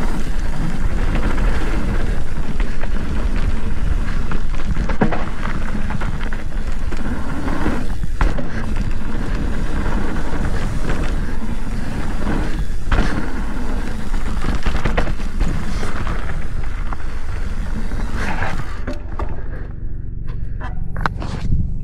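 Mountain bike rolling fast down a dirt trail: steady tyre and ride noise with the bike rattling and knocking over bumps. The noise drops about three seconds before the end as the bike slows.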